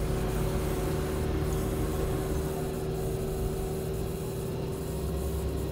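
RV fresh-water diaphragm pump running steadily under load, a constant hum, while tap water flows from the kitchen faucet into a plastic bottle.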